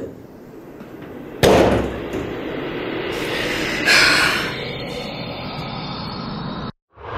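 Cinematic horror sound design: a sudden hit about a second and a half in, then a low rumbling drone that swells again near four seconds and cuts off abruptly near the end.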